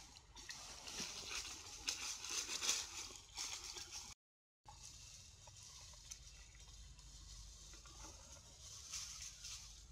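Faint outdoor ambience: a high hiss with light crackling and rustling, cutting out completely for a moment about four seconds in, then a quieter hiss over a faint low rumble.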